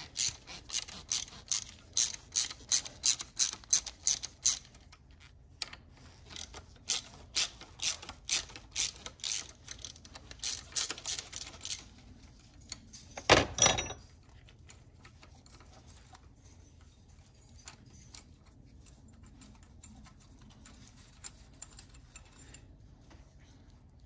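Socket ratchet clicking in quick runs, about four or five clicks a second, as the T45 Torx bolts holding a 3.5L EcoBoost high-pressure fuel pump are backed out, with a short pause between the two runs. A single louder clank comes about thirteen seconds in, and after it only faint handling sounds.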